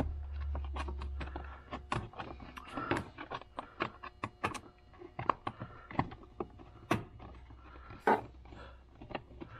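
Irregular clicks and knocks of hard plastic seat trim and parts being handled and fitted, the loudest knock near the end. A low steady hum sounds under them for the first second and a half, then stops.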